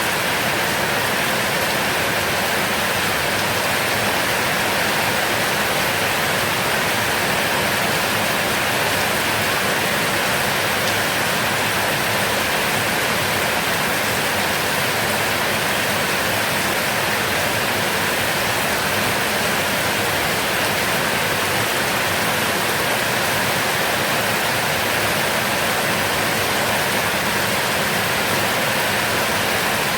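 Heavy rain falling steadily, a dense even hiss with no let-up or thunder.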